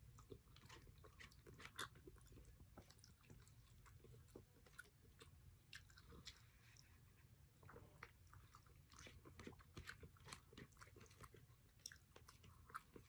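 Faint chewing and mouth sounds of someone eating palabok rice noodles, with scattered small clicks of a plastic fork in a cardboard takeaway box.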